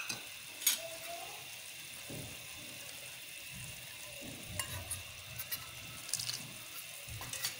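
Onion, yogurt and spice masala frying in ghee in an aluminium pot, a steady faint sizzle, with water poured in from a jug in the second half and a few light metal clinks against the pot.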